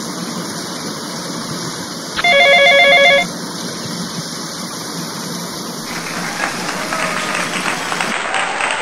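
Sound effects over a steady rushing noise. About two seconds in, a loud, warbling electronic ring like a telephone trill sounds for about a second. From about six seconds in, a crackling patter like clapping starts, with short chirps mixed in.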